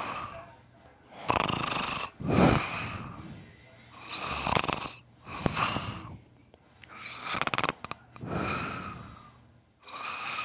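A person in deep sleep snoring heavily, loud rasping snores in paired breaths about every three seconds. One snore near the middle breaks into a quick run of clicks.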